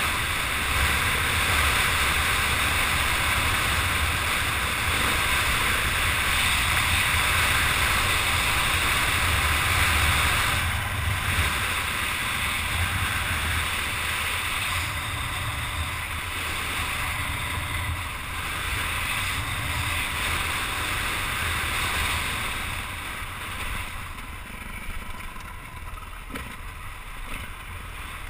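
Wind rushing over a helmet-mounted camera on a moving dirt bike, with the bike's engine running steadily underneath. It gets quieter over the last few seconds.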